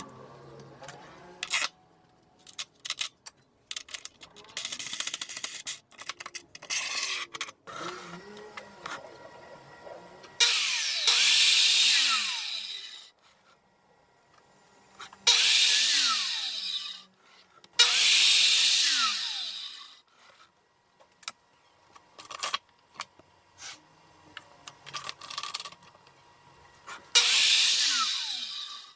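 Bosch circular saw on a sliding panel-saw carriage making four short crosscuts through a square MDF test board, each about two seconds long, with the motor winding down in pitch after each. These are the test cuts of the five-cut squaring method. Clicks and knocks of the board being handled and turned between cuts.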